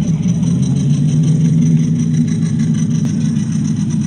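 Steady low engine-like running sound from scale RC off-road crawler trucks, getting slightly louder over the first two seconds.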